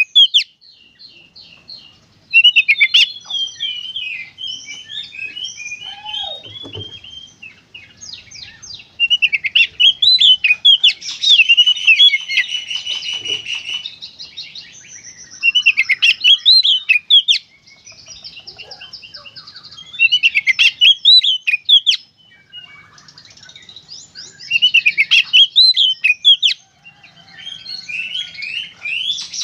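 Oriental magpie-robin (kacer) singing in repeated bursts of rapid, varied whistles and chattering trills, each a few seconds long, with short pauses between.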